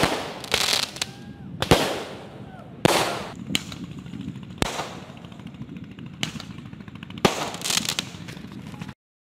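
Aerial fireworks bursting overhead: a string of sharp bangs, roughly one every second or so, each followed by a trailing echo and crackle. The sound cuts out for a moment near the end.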